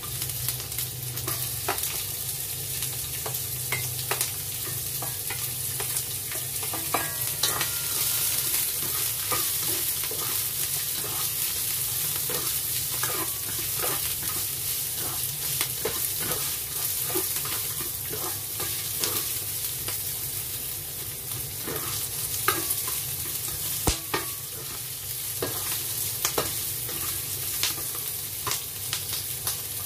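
Sliced onion and ginger sizzling in hot oil in a wok, stirred with a spatula that scrapes and taps against the pan: a steady sizzle with frequent sharp clicks.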